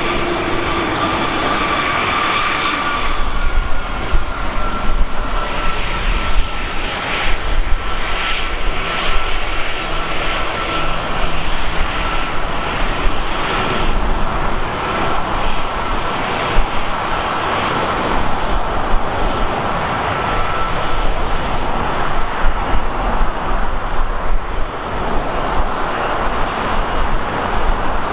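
Airliner's engines running, a steady rush of noise with a high whine that holds from about three seconds in until past the middle, over irregular low rumbles.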